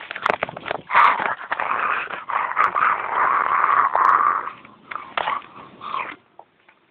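Raspy, noisy growling with scuffling and a few sharp knocks. It is loud for the first four and a half seconds, then comes in shorter bursts and fades out about six seconds in.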